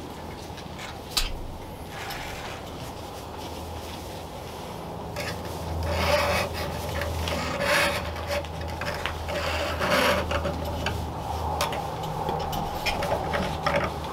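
An electrical cord being handled and pulled along wooden wall framing: irregular rubbing and scraping, busiest in the middle, with a sharp click about a second in and a steady low hum underneath.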